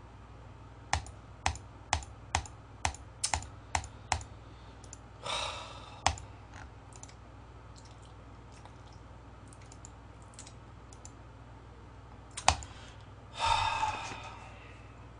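Computer keyboard keys being pressed: a run of sharp clicks about two a second for three seconds, then scattered fainter taps and one louder click near the end. Two short breathy rushes of noise fall between them.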